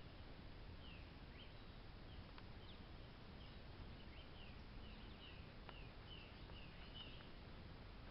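Faint birds chirping outdoors: many short, quick call notes scattered over a steady low hiss.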